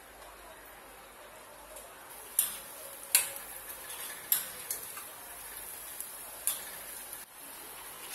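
Gram-flour pakoras frying in hot oil in a kadhai: a steady sizzle broken by a handful of sharp ticks and taps over the middle few seconds.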